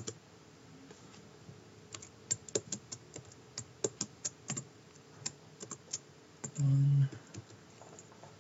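Computer keyboard being typed on: irregular single keystrokes as numbers are entered, with a brief low hum about two-thirds of the way in.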